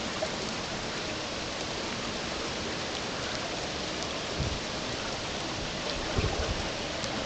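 A creek in flood, running about four feet above normal, rushing steadily as an even hiss of moving water, with light rain falling. A couple of brief low bumps come about halfway through and again near the end.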